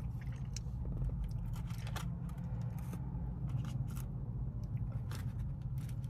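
Scattered crinkles and rustles of paper food liners as fries and wings are picked out of them by hand, over a steady low hum.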